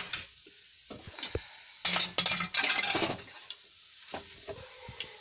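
A spoon stirring and scraping roasted moong dal halwa in a pan to work in freshly added ghee, with sizzling. The scrapes and clinks come thickest about two to three seconds in.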